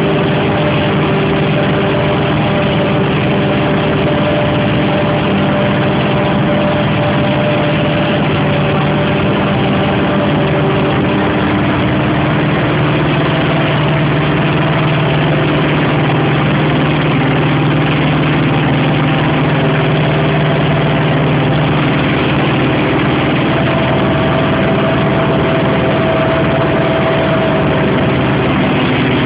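Claas Jaguar 695 SL self-propelled forage harvester running while harvesting maize: a loud, steady machine drone with several steady engine tones.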